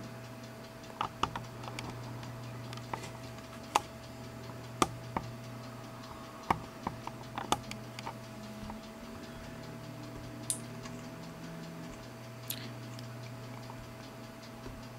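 Scattered, irregular sharp clicks from an iBook G3 clamshell laptop over a steady low hum.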